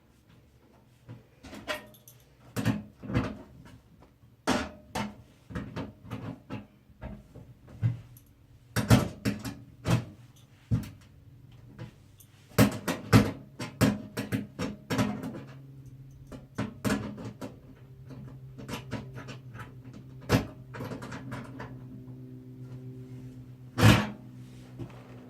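Irregular clicks, knocks and clatters of hardware being handled while a motherboard is fitted into a PC case, one sharp knock standing out near the end. A low steady hum comes in about halfway through.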